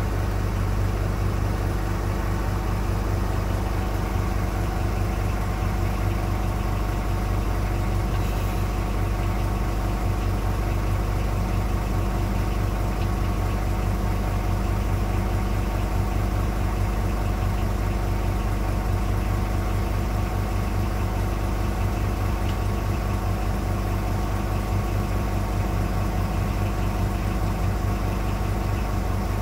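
Small boat's motor running steadily at low, idling-range speed, a constant low hum with a droning pitch that does not change.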